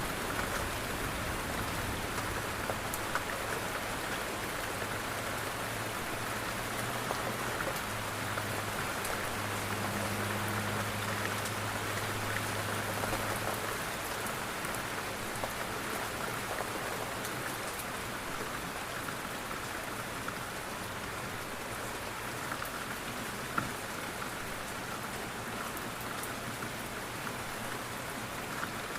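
Steady rain falling on window glass, a constant hiss with scattered drop ticks. A low hum sits under it for about the first half.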